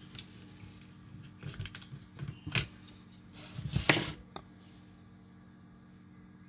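Handling noise as a circuit board is released from a spring-loaded PCB holder: scattered small clicks and rustles, with the loudest clatter about four seconds in. A faint steady hum sits underneath.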